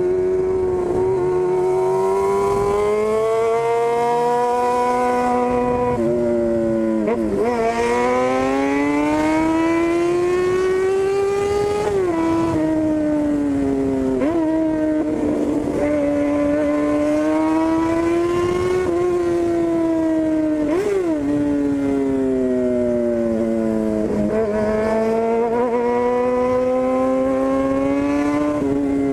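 Yamaha FZ6's 600 cc inline-four running through a straight-through 4-into-1 pipe with no silencer while riding. The pitch climbs steadily and drops sharply several times as it shifts up through the gears.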